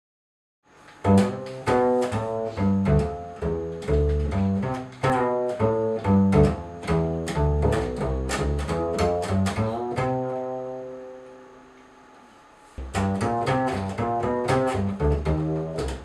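Double bass played pizzicato: a steady run of plucked notes. About ten seconds in, the notes are left to ring and fade away for a couple of seconds before the plucking starts again.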